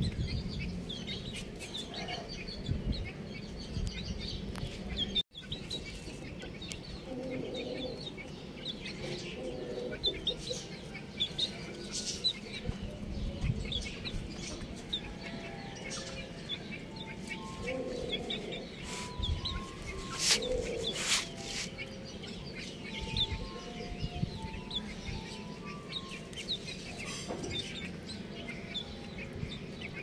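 Baby chicks peeping: many short, high chirps throughout, mixed with occasional lower clucks from chickens.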